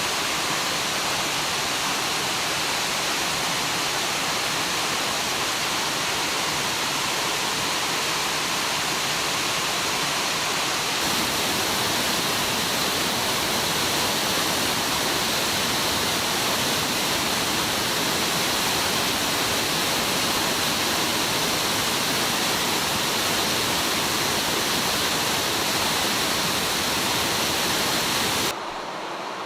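Mountain stream water rushing, a steady even rush. The sound shifts slightly about eleven seconds in and drops off abruptly just before the end.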